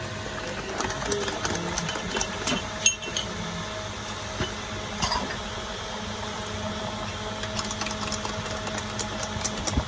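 A metal spoon stirring milk tea in tall drinking glasses, clinking against the glass in quick runs of light ticks, over a steady mechanical hum.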